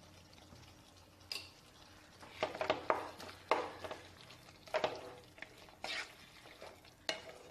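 A spatula stirring chicken pieces in a thick sauce in a nonstick frying pan, mixing in sugar just sprinkled over. The spatula scrapes and knocks against the pan in short clusters, several times a second.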